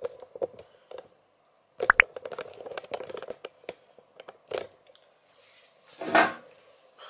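Handling noise close to the microphone: a run of small clicks, crinkles and knocks, with a louder knock about two seconds in and a louder rustle about six seconds in.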